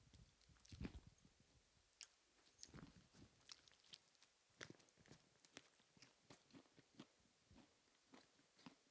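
Faint, irregular chewing with small crunches and clicks: a person eating a duck wing.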